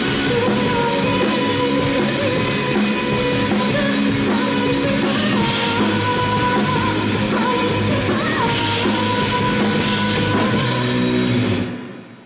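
Rock band playing live, with drums, guitars and singing, loud and full. The sound drops away sharply near the end.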